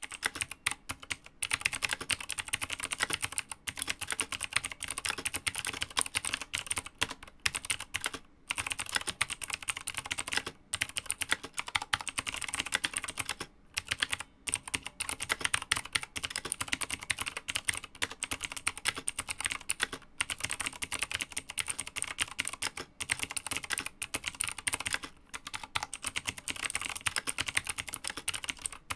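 Razer BlackWidow V3 TKL mechanical keyboard being typed on steadily: rapid, sharp clicks from its clicky Razer Green switches, broken by a few short pauses. There is some hollow case ring, as the case has no internal sound dampening.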